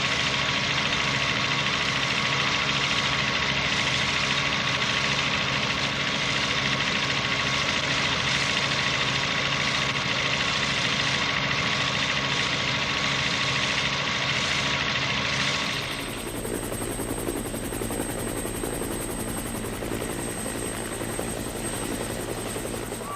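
Rescue helicopter's rotor and engine running steadily, with a constant high whine over the rotor noise. About sixteen seconds in, it gives way abruptly to a quieter low hum.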